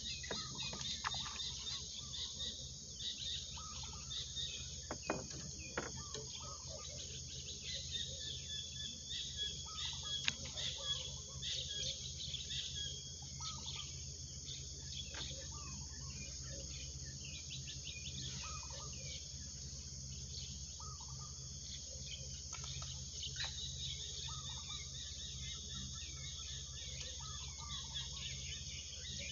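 Steady chorus of insects with short bird calls and chirps scattered throughout, and a few soft clicks.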